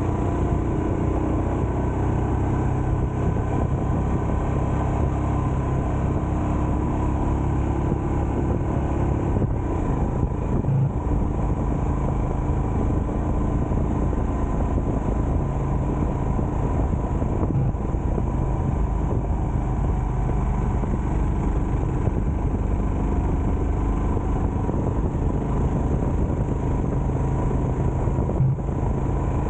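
Steady engine and road noise of a vehicle driving along, with the engine note shifting about nine seconds in.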